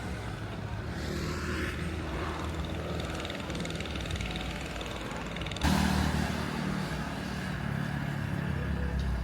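A vehicle engine running under steady outdoor background noise, with an abrupt step to a louder sound a little over halfway through.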